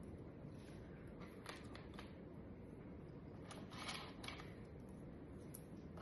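Faint handling noises of small parts at a workbench: a few light clicks, then a short rustle or scrape about four seconds in, over steady background hiss.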